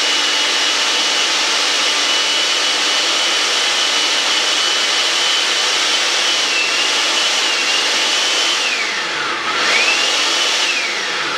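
Countertop blender running at speed, a steady motor whine as it blends red pepper and onion into the lime mixture for a thick ceviche sauce. The pitch dips about nine seconds in, picks back up, and starts winding down right at the end.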